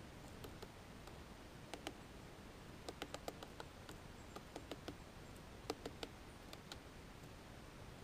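Great spotted woodpecker pecking at a pine cone wedged in its anvil on a pine trunk: faint, irregular sharp taps in short clusters.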